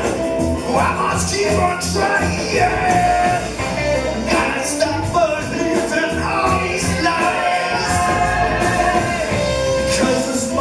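Live rock band playing with drum kit, congas and electric guitars, a singer's voice carried over the band.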